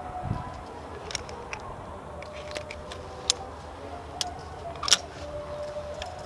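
Scattered sharp metallic clicks and clinks of via ferrata lanyard carabiners knocking against the steel safety cable and iron rungs, the loudest about five seconds in, with a dull thump at the start.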